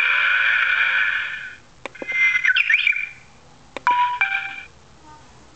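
Aftermarket approaching-vehicle warning sound unit for a hybrid or electric car playing a series of its synthetic effect sounds: a steady electronic tone held for about two seconds, then a shorter sound with warbling, gliding tones, then another with short steady beeps.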